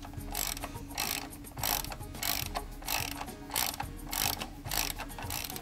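Ratchet wrench clicking in repeated back-and-forth strokes, about nine even runs of clicks a little under two a second, as it undoes a compressor mounting bolt.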